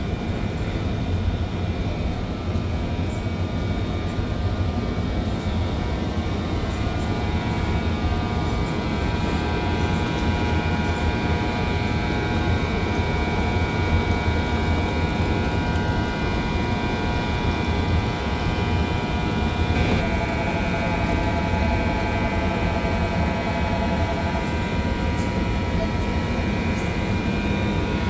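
Korail 8200-class electric locomotive standing at the platform with its onboard equipment running: a steady hum with several whining tones over a low rumble. A lower whining tone joins for a few seconds about two-thirds of the way through.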